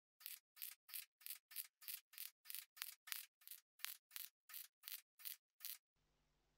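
MIG welder laying a stitch weld in short pulses: a rapid, even series of brief sizzling arc bursts, about three a second, that stops near the end.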